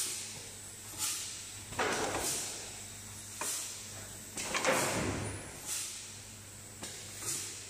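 Pneumatic cylinders on a WEGOMA WSA4V vertical four-head PVC window welding machine releasing air in a series of short hisses, roughly one a second, as the machine moves a welded window frame, with a heavier hiss and clunk about five seconds in. A steady low electrical hum runs underneath.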